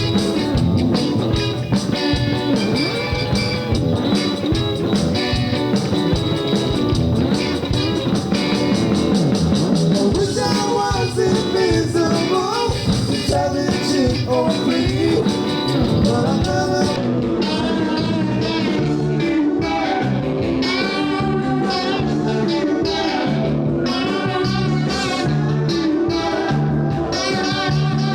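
Rock band playing an instrumental passage: electric guitar over bass and drums. About two-thirds of the way through the high, bright part of the sound drops away, leaving guitar and bass lines to carry on.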